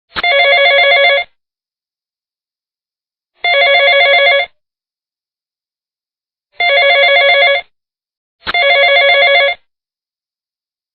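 Telephone ringing: four rings of about a second each, each with a fast warbling trill, the last two closer together than the first.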